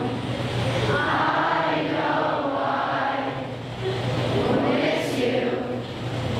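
A large group of kids and teenagers singing a camp alma mater song together, many voices at once.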